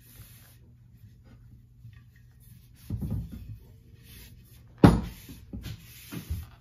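A True Temper Kelly Perfect double-bit axe handled on a wooden workbench: rustling from a rag wiped over the hickory handle, then one sharp knock a little before five seconds in, followed by a couple of lighter knocks.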